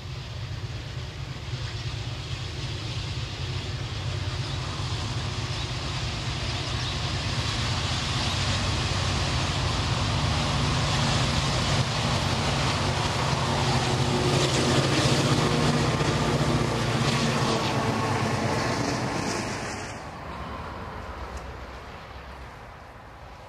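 V/Line G class diesel-electric locomotives hauling a freight train, their engines droning steadily and growing louder as the train approaches, with wheel-and-rail noise on top. The sound drops away abruptly near the end to a much quieter background.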